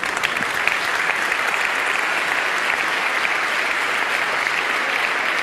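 Theatre audience applauding, a dense steady clapping that swells up at the start and holds.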